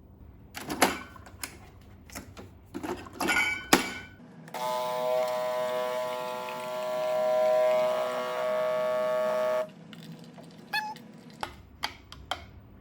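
Light clicks and knocks of handling, then a small electric appliance runs with a steady whine for about five seconds and cuts off abruptly.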